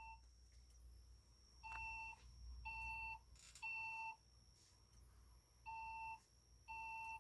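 Fire alarm speaker sounding a faint temporal-three evacuation tone: three half-second beeps a second apart, a pause of about two seconds, then three more, the signal that precedes a voice evacuation message.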